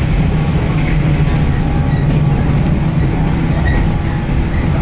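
Electric train running along the line, heard from inside the carriage: a steady low rumble of wheels and running gear.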